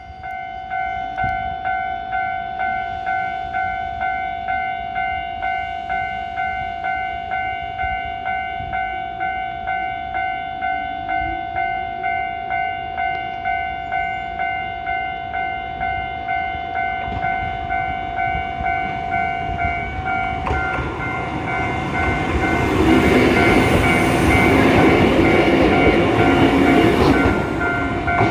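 Level-crossing warning bell ringing in a rapid, even repetition, with a train passing over the crossing late on, its running noise briefly louder than the bell, which keeps ringing after it.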